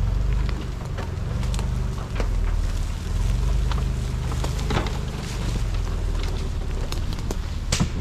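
Pickup truck engine running low and steady as the truck creeps along a dirt woods trail, with tyres crunching over dry leaves and snapping twigs in frequent sharp cracks, one louder crack near the end.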